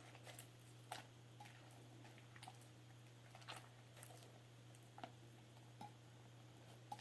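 Faint, scattered wet squelches and clicks of slime being mixed by hand, about once a second, over a low steady hum.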